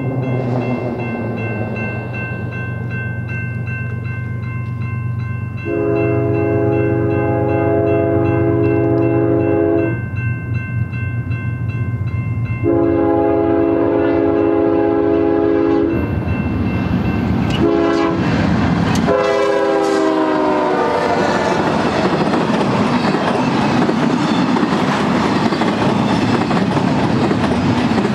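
BNSF double-stack train led by a GE ES44DC diesel locomotive approaching with its engines rumbling. It sounds its air horn in the grade-crossing pattern: two long blasts, a short one, and a last long one that drops in pitch as the locomotives pass. The intermodal well cars then roll by with steady wheel-on-rail noise and clickety-clack.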